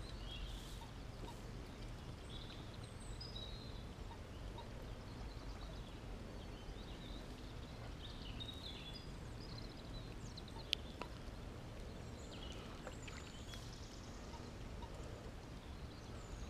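Quiet outdoor ambience: a steady low rumble with faint, scattered bird chirps and calls, and one sharp click about ten and a half seconds in.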